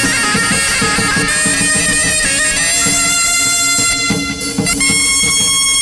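Vietnamese chầu văn ritual music: a reedy, nasal wind-instrument melody on long held notes over a steady low drone, with drum strokes underneath.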